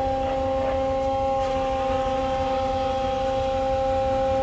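Hydraulic davit winch hoisting a rescue boat: a steady, even-pitched whine over a low rumble.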